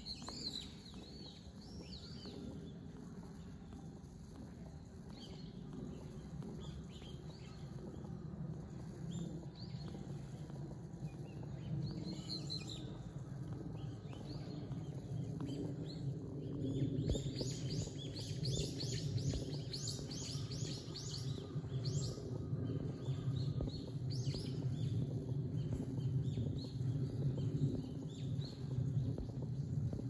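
Wild birds chirping: a few short high calls near the start and about halfway, then a quick run of repeated chirps a little past the middle, over a steady low rumble.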